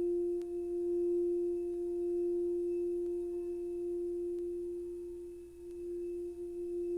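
Crystal singing bowl sounding one long, steady, almost pure tone with a faint higher overtone. It dips briefly about five and a half seconds in, then swells back.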